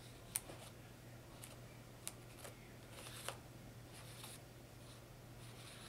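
Faint scrapes of a metal palette knife spreading light molding paste across a stencil on a sketchbook page: a few separate short strokes and taps, spaced irregularly.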